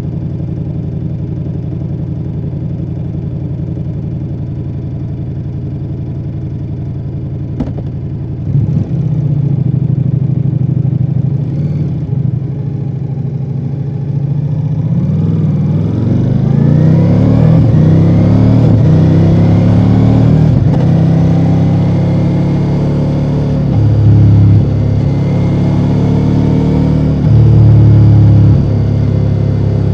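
2024 Ducati Multistrada V4 Rally's V4 engine through its stock exhaust, running steadily at low revs, then pulling away: about halfway through the revs climb in several rising sweeps as it accelerates through the gears, then it runs on at a steady speed with two brief surges in revs.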